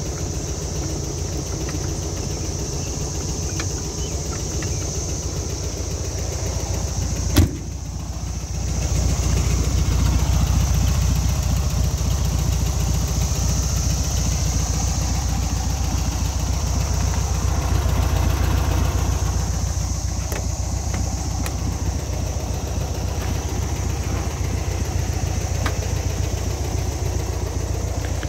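Volkswagen Beetle's air-cooled flat-four engine idling steadily. A single sharp knock sounds about seven seconds in, and a second later the idle grows louder and stays so.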